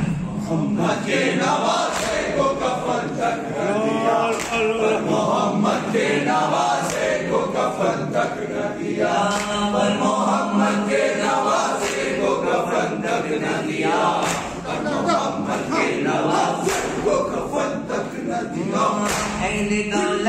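Men's voices chanting an Urdu noha, a lead reciter on a microphone with others joining in. Sharp chest-beating (matam) slaps keep a steady beat about once a second.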